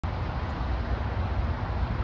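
Steady outdoor background noise: a low rumble with an even hiss, and no distinct event.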